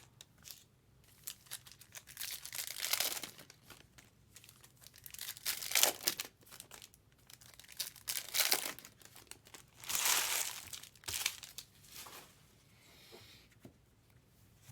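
Trading-card pack wrappers crinkling and tearing as packs are opened and cards handled, in irregular bursts of rustling with short pauses between.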